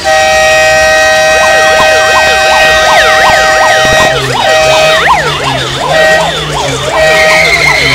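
Loud electronic siren: a steady horn-like tone starts abruptly, and about a second in a fast yelp rising and falling two or three times a second joins it; after a few seconds the steady tone breaks into short blasts while the yelp keeps going.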